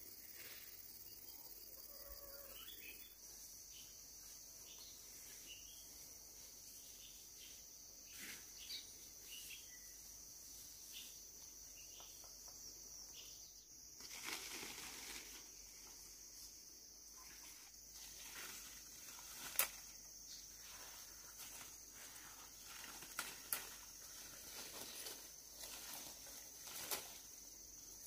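A steady high-pitched insect drone, like crickets, that sets in a few seconds in. Scattered sharp clicks and knocks sound over it, with the loudest near the middle and a pair about two-thirds of the way through.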